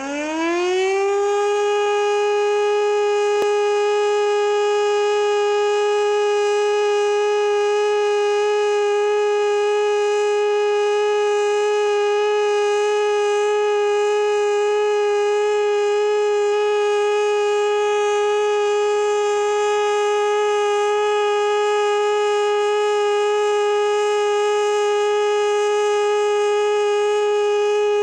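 Air-raid siren finishing its wind-up in the first second, then holding one steady, loud tone.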